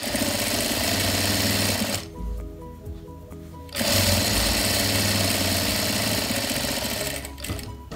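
Jack F4 industrial sewing machine stitching a seam in two runs: about two seconds of sewing, a pause of nearly two seconds, then about three and a half seconds more.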